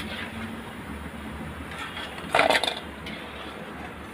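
Metal slotted spoon clinking against a metal kadhai and a steel bowl as fried masoor dal pakoras are lifted from the oil and tipped out, with a short burst of clattering about halfway through, over a steady hiss of oil frying.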